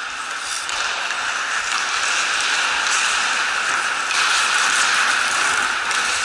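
Ice hockey rink sound during play: a steady scraping hiss of skates on the ice, with a few faint knocks.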